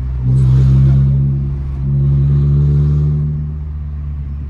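Toyota Corolla 1.8 four-cylinder engine with its DPW stainless-steel exhaust cutout valve open, giving a deep exhaust rumble. It swells louder twice as the throttle is pressed, then eases off near the end.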